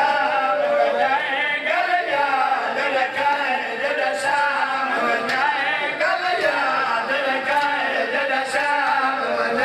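Voices chanting a mournful Muharram lament for Imam Husayn, several voices overlapping in long, wavering held notes.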